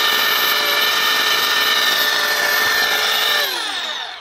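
Handheld plastic extrusion welder for geomembrane running with a steady high motor whine. About three and a half seconds in, the pitch falls as the motor spins down and stops near the end.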